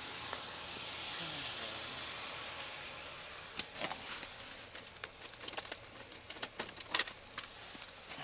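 A steady hiss for the first few seconds, then a scatter of small clicks and knocks as things are handled inside a vehicle's cab.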